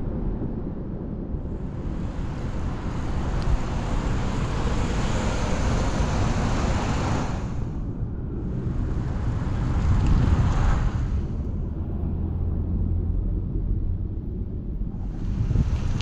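Wind and road rumble on a camera riding a bicycle through city traffic, with a rushing hiss that swells for about six seconds, returns for a few seconds, and comes once more near the end.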